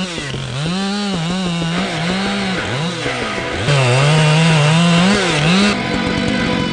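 Two-stroke chainsaw running at high revs, its engine pitch dipping sharply twice and recovering, as in revving or bogging in a cut. Near the end a denser, buzzier sound takes over.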